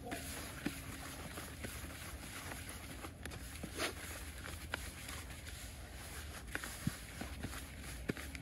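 Hands mixing moistened fishing groundbait: a steady gritty rustling with scattered light clicks and ticks.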